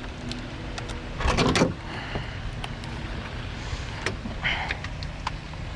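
Brief whir of a small electric power tool a little over a second in, with scattered metal clicks of tools handled around the engine's water pump bolts.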